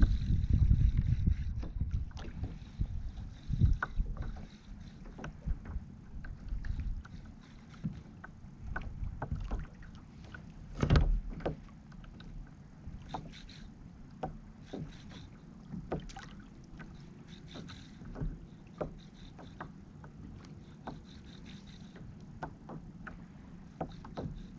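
Small waves slapping against a kayak's hull, with many short knocks and clicks and one louder knock about eleven seconds in.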